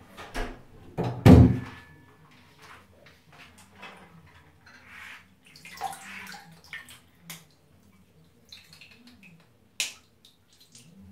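Water sloshing and splashing in a filled bathroom sink as hands swish Lego bricks around to wash them, with small clicks of the plastic pieces. A loud thump comes about a second in.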